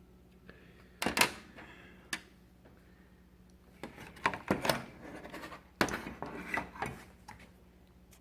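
Clicks and light clatter of small hard parts being handled on a workbench during a circuit-board capacitor repair. There is a sharp knock about a second in, then busier bursts of clicking and rattling around four to seven seconds in.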